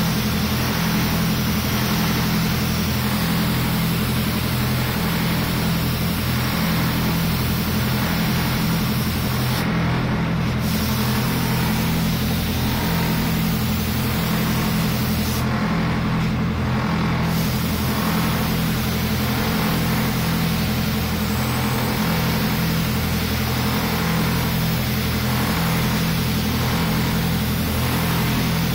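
Compressed-air spray gun hissing steadily as it sprays spray-on chrome onto an alloy wheel. The hiss stops briefly twice, about ten and about sixteen seconds in, over a steady low machine hum.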